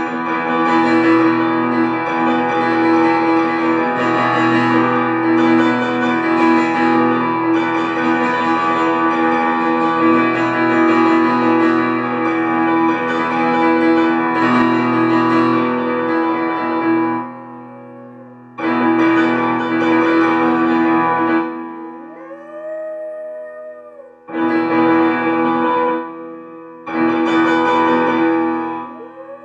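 Keyboard music playing held chords that breaks off and restarts over the last third. In its pauses a small dog howls, short rising-and-falling howls.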